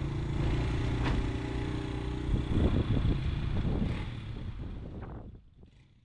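Pickup truck engine idling steadily, with a few irregular knocks partway through, then fading out near the end.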